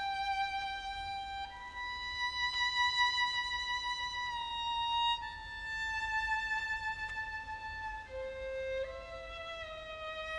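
Solo violin playing a slow melody of long held notes, one at a time, each changing every second or two, with a slight waver in the pitch.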